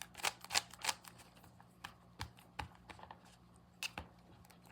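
A plastic 3x3 Rubik's cube being turned by hand: its layers click and snap in quick, irregular strokes, thick in the first second and then sparser. Its turning is only so-so.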